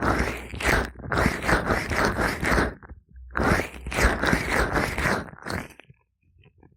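Gloved hands rubbing and squishing oil over an ear in quick, repeated strokes: two runs of rubbing with a short break between them, fading out near the end.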